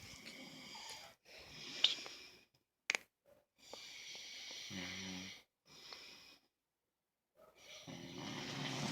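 A man snoring in his sleep: a run of hissing breaths, with a low rattling snore about five seconds in and another near the end. Two short sharp clicks come around two and three seconds in.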